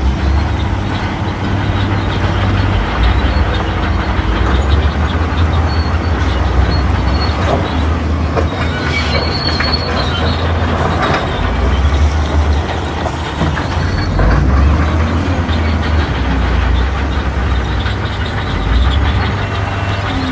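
Shantui D31P crawler bulldozer working: its diesel engine runs loud and uneven under load while the steel tracks clatter, with a brief high metallic squeal about nine seconds in.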